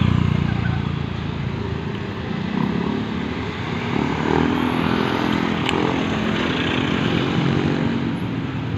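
Street traffic with motorcycles passing close by, their engines running. The loudest pass is right at the start, and another engine swells about four seconds in.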